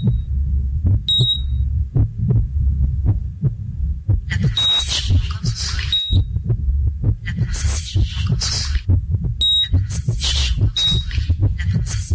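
Sound design from a short film's soundtrack: a low, rapid throbbing pulse under pairs of short high beeps, the two beeps about a second and a half apart and the pairs coming every few seconds. From about four and a half seconds in, repeated bursts of hissing noise join in.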